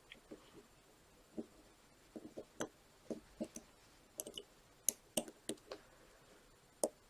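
Irregular light clicks and taps from small metal lock parts being handled, with a cluster of sharper metallic clicks around the middle and one more near the end.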